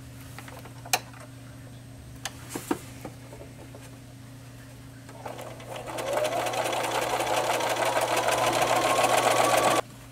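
Bernina activa 240 electronic sewing machine stitching a 1/4 inch seam through layered cotton strips. A few light clicks come in the first three seconds. About five seconds in, the machine starts up and runs steadily, its whine rising in pitch as it gathers speed, then stops abruptly near the end.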